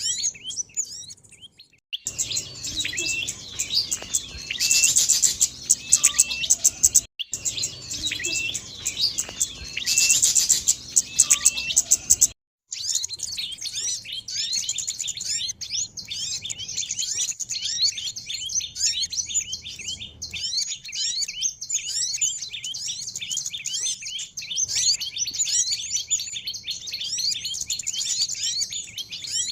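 Recorded calls of small songbirds used as a bird lure: dense, high-pitched chirping and twittering, spliced together with abrupt cuts about two, seven and twelve seconds in. From about twelve seconds on it becomes a busy chatter of many rapid, downward-sliding chirps.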